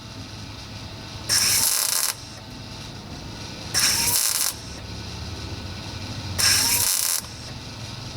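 Small MIG welder laying spot welds on a cracked steel fender lip: three short bursts of arc crackle, each under a second and about two and a half seconds apart, with a low steady hum between them.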